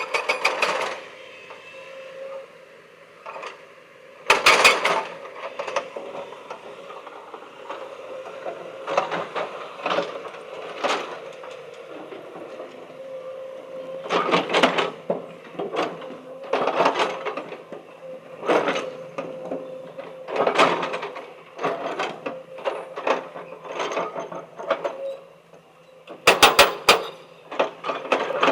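Stone crusher running with a steady hum, with irregular clattering knocks as rock passes through it, some in quick clusters.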